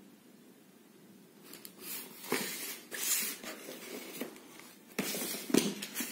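Tissue paper and thin plastic shoe wrapping rustling and crinkling as a pair of running shoes is handled in an open cardboard shoebox and lifted out, with a few sharp knocks against the box. It starts about a second and a half in, after a moment of quiet.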